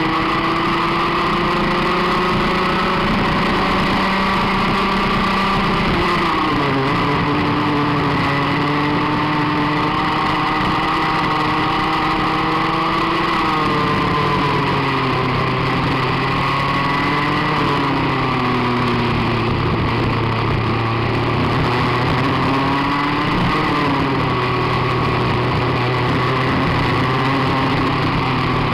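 Rotax Max 125cc single-cylinder two-stroke kart engine running hard on a lap, heard close up from the kart. Its pitch climbs steadily on the straights and drops back each time the driver lifts for a corner, several times over.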